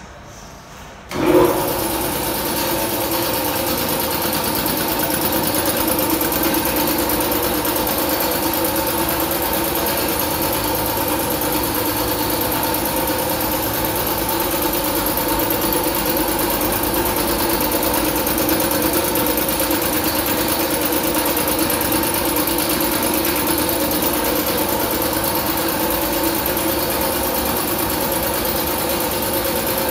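Elite 2 hp single-cylinder, belt-driven piston air compressor with a 2 hp single-phase motor, switched on about a second in with a brief loud jump, then running steadily with a steady hum.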